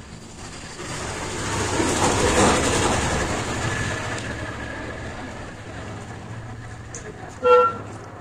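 A vehicle passing, its noise swelling over a couple of seconds and then slowly fading, followed by a short horn toot near the end.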